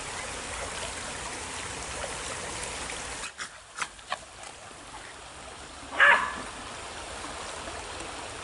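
Shallow stream running over stones for the first three seconds, then a few sharp plastic clicks from a LifeSaver water-filter bottle being handled. About six seconds in, a single short bark from a small terrier is the loudest sound.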